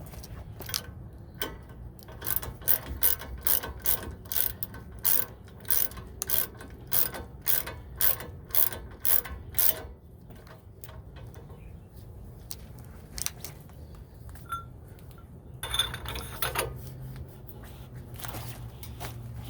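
Hand ratchet clicking in steady strokes, about two to three clicks a second, as the 19 mm brake caliper bracket bolts are snugged up. The clicking stops about halfway through, a brief noise comes later, and a few clicks come near the end.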